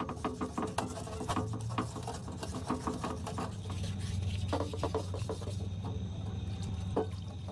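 Irregular scraping and rubbing from hand work, many short strokes, over a steady low hum. Faint steady high tones come in near the end.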